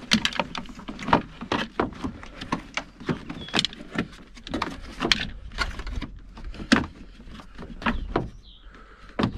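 Plastic windscreen cowl panel being handled and pressed into its clips by hand: a run of irregular plastic clicks and knocks, with a louder knock near the end.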